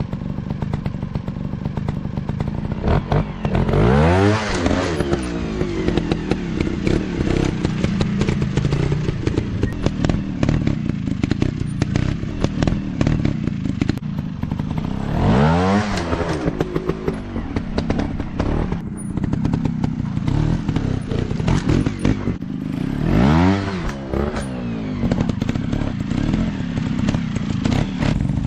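Dirt-bike engine running, revving up and back down three times, with a fourth rev starting near the end; clattering and scraping knocks throughout.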